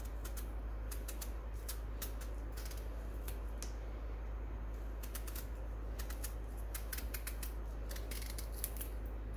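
Small kitchen knife cutting and scraping the thick peel off a raw green banana: an irregular run of crisp little clicks and scrapes, some in quick clusters, over a steady low hum.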